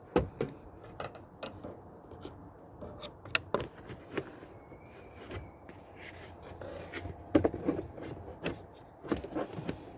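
Plastic rear speaker trim panel being handled and pushed into place on a car's interior: irregular clicks, taps and rubbing of plastic against plastic trim, busiest in the second half.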